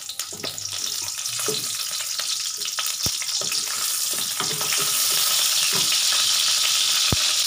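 Onion pieces sizzling in hot oil in a wok, a steady frying hiss that grows louder, while a wooden spatula stirs and scrapes them, with two sharp knocks against the pan, about three seconds in and near the end.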